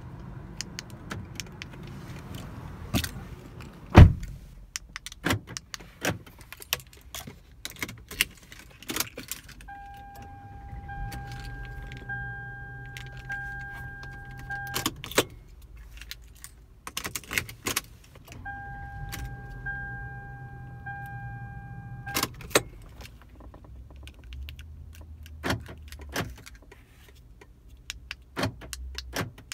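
Keys and remote fobs jangling and clicking in the hand inside a car, with a sharp knock about four seconds in. Twice a pulsing electronic warning chime sounds in the car for several seconds.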